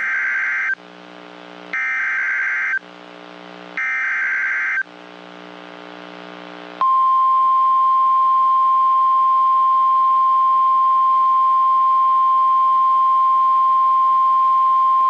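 NOAA Weather Radio emergency alert signal. First come three short bursts of SAME digital header data, each about a second long and about a second apart. Then, about seven seconds in, the long steady warning alarm tone begins, signalling that a new warning is about to be broadcast.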